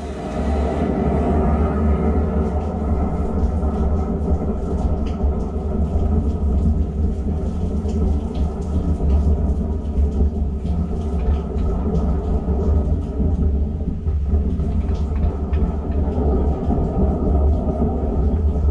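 High-pressure sewer jetter running, driving a Warthog rotating nozzle through the drain line to clear hair from the pipe. It starts suddenly and runs as a loud, steady rumble with a steady hum over it.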